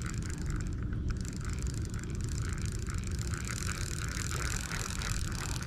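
Fishing reel being cranked steadily to wind in line, its gears whirring in a rhythm of about two turns a second. Wind rumbles on the microphone.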